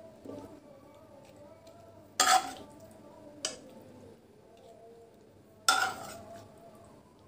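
A metal spoon clinking against a serving dish as food is spooned in: two sharp clinks about two and six seconds in, with lighter taps between, each ringing briefly.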